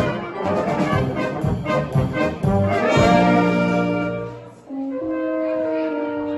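Brass band with clarinets playing a Bohemian polka in a steady oom-pah rhythm with tuba bass. About four and a half seconds in the full band drops away briefly and a softer melody of held notes, without the bass beat, takes over.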